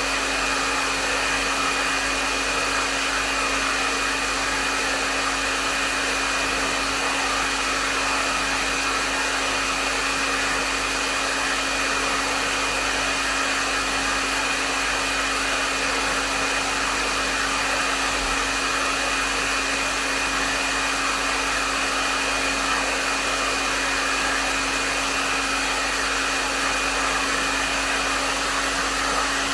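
Hair dryer running steadily: an even rush of blown air with a constant low hum and a thin high whine from its motor, with no change in speed.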